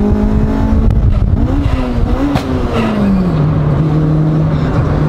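Honda Civic EG's B18C VTEC four-cylinder engine, heard from inside the cabin while driving. It holds a steady note, breaks and wavers about a second in, briefly rises and falls, then settles to a steady lower note, as if shifting through the gears. A sharp click sounds about halfway.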